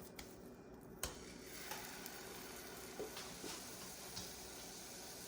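Faint sizzling in a frying pan that starts just after a sharp click about a second in, with a few light clicks and knocks of utensils against the pan.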